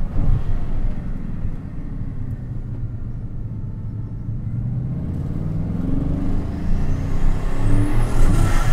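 Bugatti Chiron Sport's quad-turbocharged 8.0-litre W16, heard from inside the cabin. It runs quieter for a few seconds, then accelerates from about five seconds in with a rising engine note and a climbing turbo whistle. The whistle peaks and drops away near the end with a rush of air.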